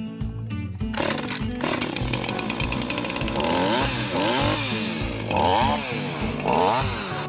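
Husqvarna 450 Rancher two-stroke chainsaw running and revving up and down several times from about three seconds in, mixed with background music.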